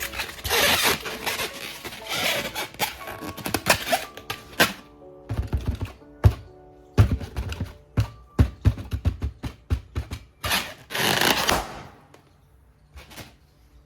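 Cartoon-style pooping sound effects: a long hissing spray, then a rapid run of low pops, then another hissing burst, over quiet background music.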